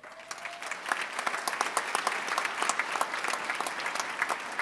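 Audience applauding, swelling over the first second and then going on steadily.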